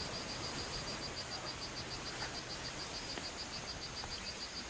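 Faint background hiss with a high insect chirp pulsing steadily, about six or seven beats a second, like a cricket.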